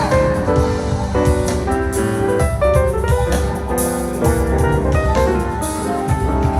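Piano-led music with a steady beat.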